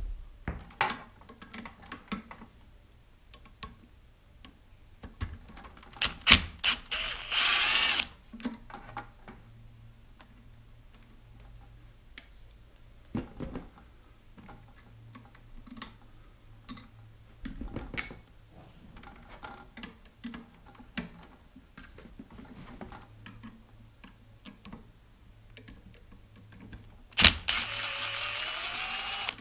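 Small scattered clicks and taps of a Phillips screwdriver and fingers working screws out of a mobility scooter's tiller, at the throttle potentiometer mount. Twice, about seven seconds in and again near the end, a louder hissing stretch with a high steady whine lasts a second or two.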